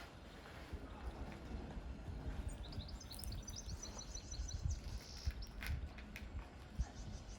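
Outdoor ambience: a bird singing a quick run of high, rapidly repeated chirps over a low steady rumble, with a few faint clicks near the end.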